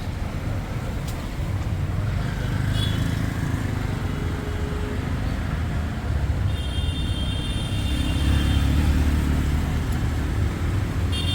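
Road traffic rumbling steadily, with a brief high-pitched tone about halfway through.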